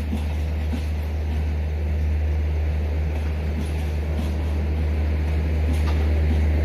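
Low, steady rumble of a train at a station, slowly growing louder, with a few faint scattered clicks.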